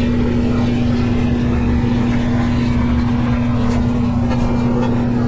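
A steady, low mechanical hum holding one constant pitch, with a rumble beneath it.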